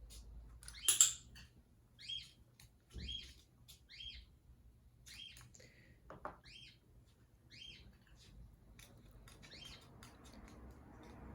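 Black-headed caique giving a string of short, soft chirps, about a dozen spread over several seconds, with a louder sharp squawk or clack about a second in.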